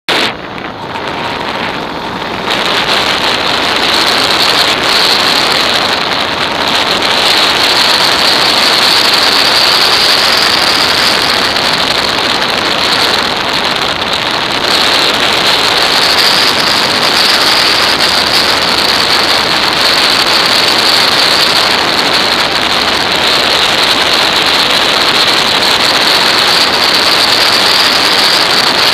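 Steady rush of wind over the microphone of a motorcycle-mounted action camera at road speed, building over the first two seconds and then holding steady, with no distinct engine note standing out.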